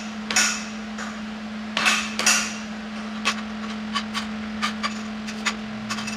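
Steel knocks and clinks as a piece of square steel tubing is tapped and adjusted into place on a steel flatbed frame: a few heavier knocks, then a quicker run of light, sharp metal taps. A steady low hum runs underneath.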